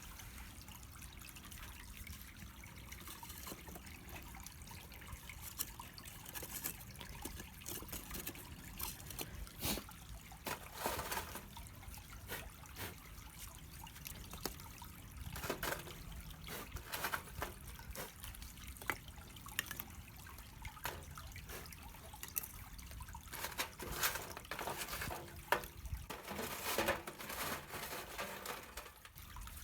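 Small wood fire burning on top of the charcoal in a shichirin grill, crackling and popping irregularly over a steady low hiss, with busier spells of snaps.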